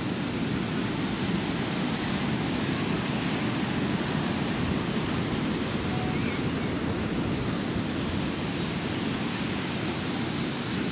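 Ocean surf washing onto the beach as a steady rushing noise, with wind on the microphone.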